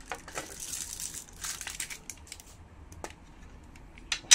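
Plastic wrapping crinkling and tearing as it is cut and stripped from a small aluminium case, with one sharp click just before the end.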